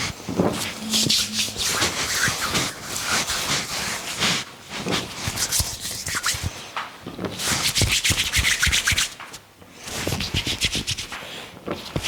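Hands rubbing an oiled scalp and hair in quick, rhythmic strokes during a head massage. The strokes come in spells of a couple of seconds, broken by short pauses.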